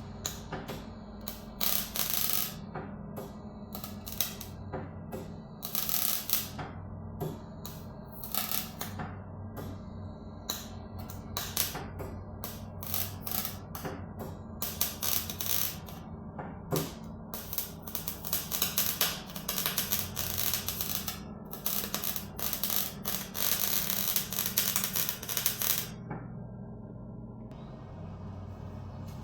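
Welder tack- and stitch-welding sheet steel on a car body repair: irregular short bursts of crackling, some lasting about a second, over a steady low hum. The bursts stop about three seconds before the end.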